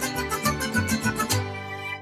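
Upbeat background music with guitar over a steady beat. About two-thirds of the way through it thins to a held note and drops away briefly at the end.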